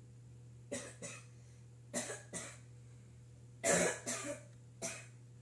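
A person coughing: about seven short coughs in small groups, the loudest about halfway through, over a faint steady low hum.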